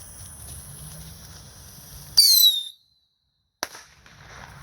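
A small firecracker goes off with one very loud bang about two seconds in, so loud that the recording briefly cuts out. A single sharp crack follows about a second later.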